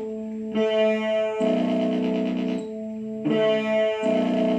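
Electric guitar chords played through a Korg AX1000G multi-effects pedal with its delay and modulation effects on, each chord struck again every second or two and left ringing. The effected tone comes out dirty and noisy instead of clean, the fault in the pedal's delay and modulation section that is being shown.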